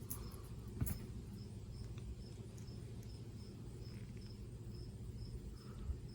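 A cricket chirping steadily, about twice a second, over a low steady hum, with one sharp click about a second in.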